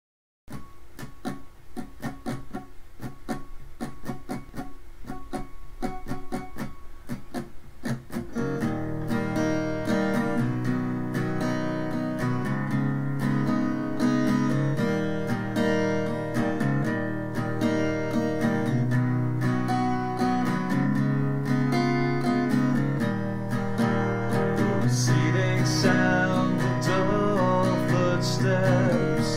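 Steel-string acoustic guitar played solo: sparse picked notes for about the first eight seconds, then fuller, louder strummed chords.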